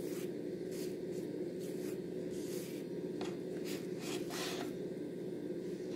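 Soft, irregular swishes of a brush stroking melted ghee across the surface of a rice pancake, about eight or nine strokes, over a steady low hum.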